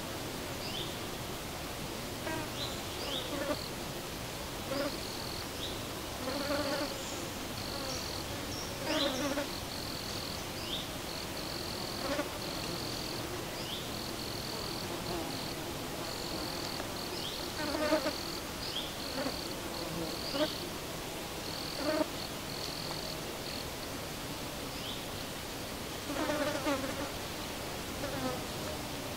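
A flying insect buzzing in short passes close to the microphone, a dozen or so times, over a steady outdoor hiss. A run of short high chirps repeats through the middle.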